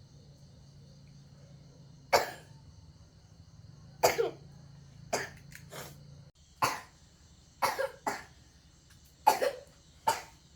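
A young woman coughing again and again: about nine short, sharp coughs, some coming in quick pairs, from someone who is ill with a cough.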